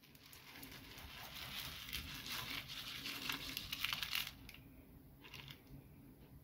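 Rinsed buckwheat grains pouring from a bowl into a frying pan of stewed vegetables: a faint, continuous pattering hiss of falling grain that fades about four seconds in, with a brief last trickle a second later.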